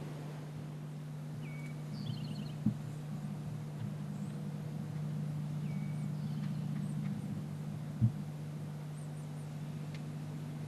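A steady low hum with a few faint bird chirps, and two dull thumps, a light one about three seconds in and a louder one about eight seconds in.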